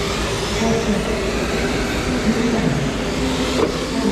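Electric radio-controlled oval race cars running laps: a steady whir of motors and tyres.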